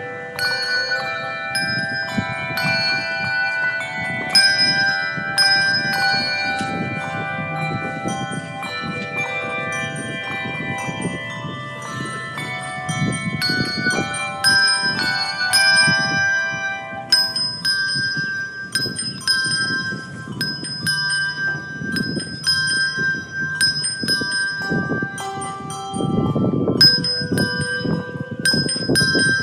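Pre-service music played on bells: a melody of struck, ringing notes, many left to sound on.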